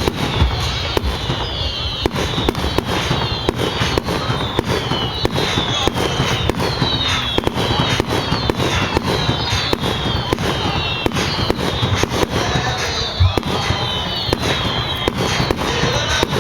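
Fireworks display: a dense, continuous string of bangs and crackles, with short falling whistles coming about once a second.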